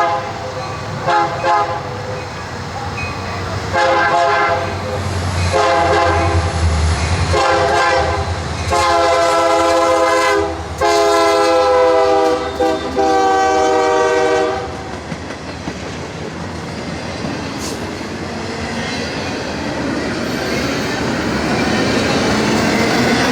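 Freight train's multi-chime locomotive horn blown in a string of short and long blasts, the longest near the middle, with the diesel engines rumbling under it. The horn stops about 15 seconds in, and the train rolls past with its wheels clicking over the rail joints, growing louder toward the end.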